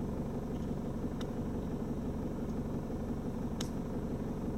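A 4WD's engine idling steadily, with two faint clicks.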